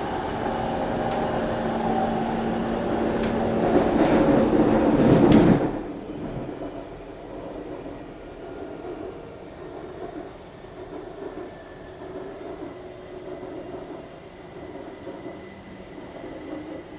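Metro train running, heard from inside the car: loud running noise with a steady hum and a few sharp clicks, which drops suddenly to a much softer rumble about five and a half seconds in.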